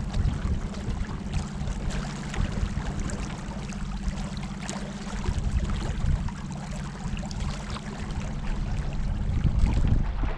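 Water trickling and splashing around a kayak, over a steady low rumble.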